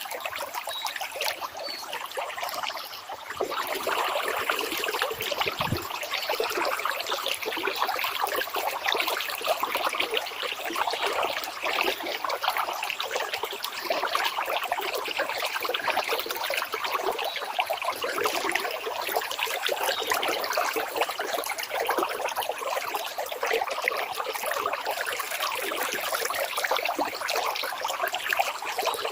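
Running water trickling and splashing steadily, as in a small stream, getting a little louder a few seconds in.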